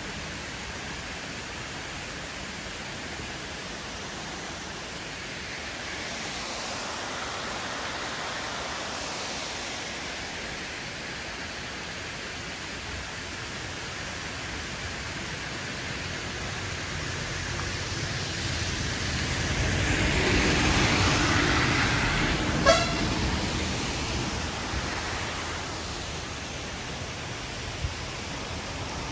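Steady hiss of rain and wet road noise, swelling as a motor vehicle passes about twenty seconds in, with one short vehicle horn toot just after.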